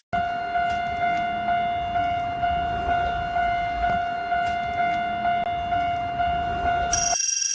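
Japanese railroad crossing alarm ringing in quick, even dings, about two a second. Near the end it cuts off and a loud, shrill horn-like tone sounds.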